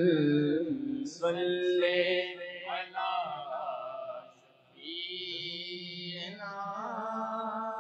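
A group of men singing a naat chorus together without instruments, drawing out long held notes in a chant-like line, with a short break between phrases about halfway through.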